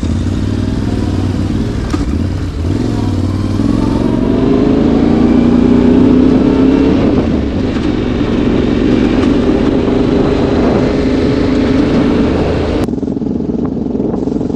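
Adventure motorcycle engine pulling away along a gravel dirt track, its pitch rising over the first few seconds as it gains speed and then holding steady as it rides on. The sound changes abruptly near the end.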